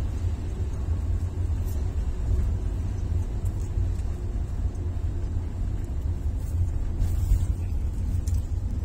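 Steady low rumble of a car heard from inside the cabin, with a few faint clicks over it.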